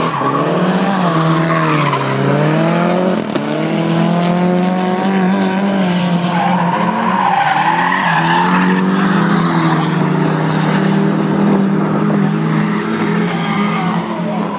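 Drift cars' engines revving up and down as they slide sideways through a corner, tyres squealing. The tyre squeal is loudest about seven to nine seconds in, as a car slides past close by.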